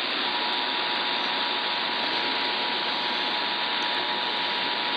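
Emergency Alert System attention signal, a steady tone just under 1 kHz, heard through heavy radio static. The tone resumes about a quarter second in and holds.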